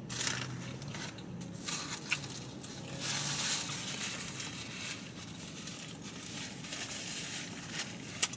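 Paper napkin rustling and crinkling as it is handled and wiped across the mouth, over chewing, with a sharp click just before the end.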